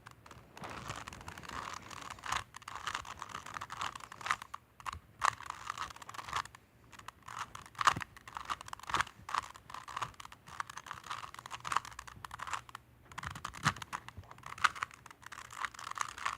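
Plastic Rubik's Cube being turned by hand: quick, irregular clicking and scraping of the layers as they twist, with short pauses, stopping at the end.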